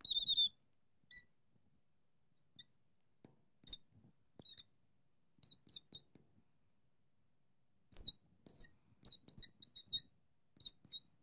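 Marker squeaking on a glass lightboard as an equation is written out. Short, high squeaks come in runs: a few at the start, scattered ones through the middle, and a quick cluster from about eight seconds in.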